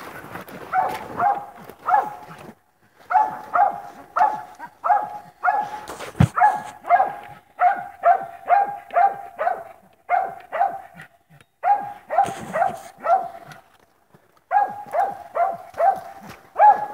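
Hunting dog barking at a tree, a rapid chop of short barks about two or three a second in runs broken by short pauses: the dog is treeing, with an opossum up the tree.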